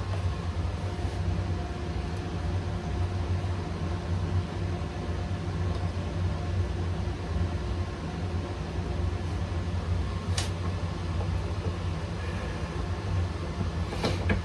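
Steady low mechanical hum with a few constant tones in it, broken by a sharp click about ten seconds in and another near the end.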